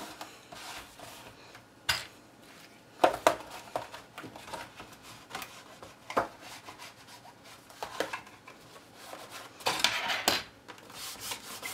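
A cardstock gift bag being handled and pressed by hand on a work surface: scattered light taps, clicks and paper rustles, with a busier patch of rustling near the end.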